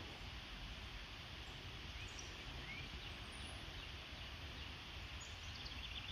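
Faint outdoor ambience: a steady low rumble with a few faint, short bird chirps.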